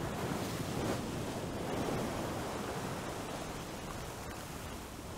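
Steady rushing of wind and sea: an even hiss with no distinct events, swelling a little about two seconds in and slowly easing off.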